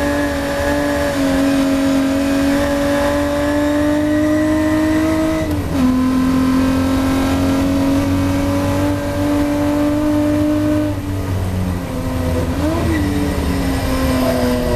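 Ford Capri V6 race car engine under full throttle, its note climbing steadily, dropping sharply at an upshift about six seconds in and climbing again. Near eleven seconds it lifts off for braking, with a quick throttle blip on a downshift shortly after.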